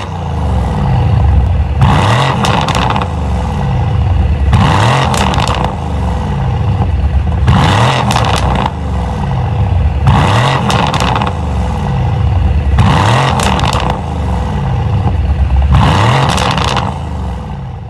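Mercedes-AMG W205 C63's twin-turbo V8 through a Capristo cat-back exhaust, revving up and down about six times in a row, louder at each peak.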